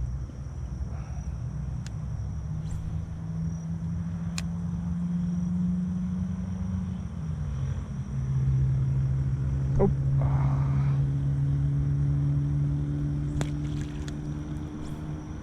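A motor engine droning steadily; its pitch drops about halfway through and it then runs louder.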